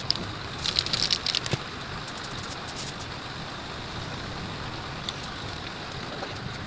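A small engine running steadily, with a few light clicks about a second in.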